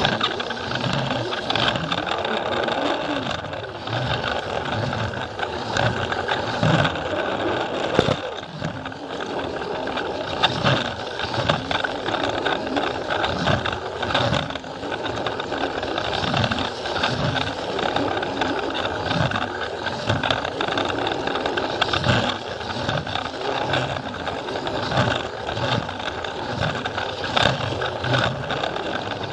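Battery-powered Plarail toy train running on its plastic track: a steady small-motor whine with the wheels clicking over the track joints in a regular rhythm.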